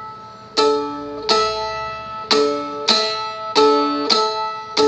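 Seagull Merlin strumstick played with natural harmonics struck across all strings: about seven strums, roughly in pairs, each left to ring with clear, sustained tones.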